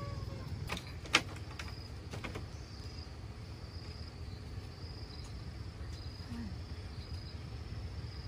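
Insects chirping in a high, pulsing trill over a steady low rumble, with a few sharp clicks in the first couple of seconds, the loudest about a second in.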